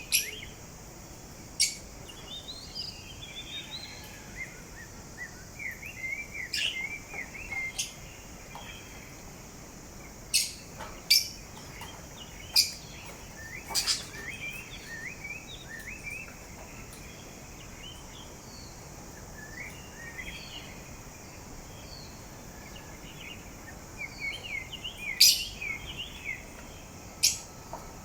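Parrot softly warbling and chattering in short wavering chirps, broken about a dozen times by sharp, short, high squeaks or clicks, the loudest near the end.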